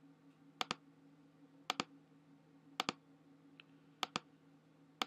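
Computer mouse clicking: five pairs of sharp clicks about a second apart, over a faint steady hum.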